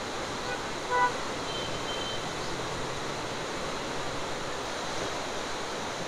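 Fast mountain river rapids rushing steadily over boulders, with a short vehicle horn toot about a second in.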